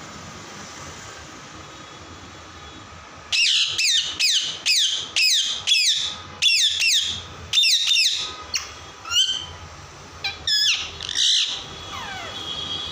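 Parrot squawking: a run of about nine harsh calls, each falling in pitch, at roughly two a second starting about three seconds in, then a few shorter, scattered calls.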